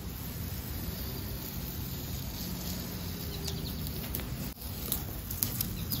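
Green painter's tape being peeled off the spray-painted handle and door edge of a mini fridge: a continuous rustling peel with a few sharp ticks in the second half. The sound breaks off briefly about four and a half seconds in.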